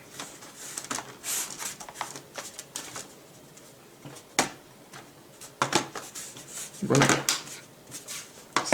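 Light plastic clicks and clatter of a laptop's bottom cover panel being handled and lined up to go back on. There is a sharp click about four seconds in and a louder scrape near the end.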